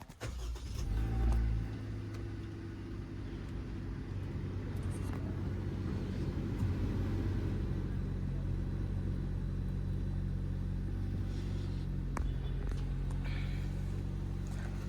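Car engine just started from cold, surging briefly about a second in and then settling into a steady idle while it warms up.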